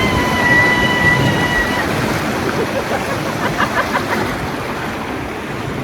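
Rushing whitewater around a river raft running a rapid, a steady wash of water noise. In the first two seconds a voice holds one long high cry over it, and brief shouts come a few seconds in.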